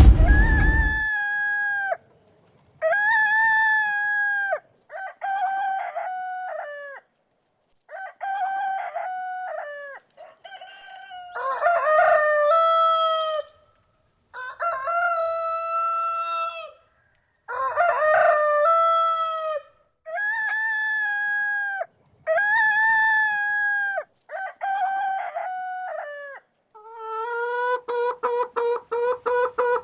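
Rooster crowing again and again: about a dozen separate crows, each a few short notes and then a long held note, with silent gaps between them. Near the end it turns to quick repeated clucking. A brief low thump comes at the very start.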